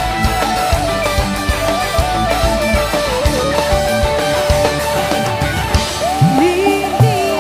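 Live dangdut band playing loud music: a distorted electric guitar carries the lead melody in held and bent notes over a steady drum-kit beat.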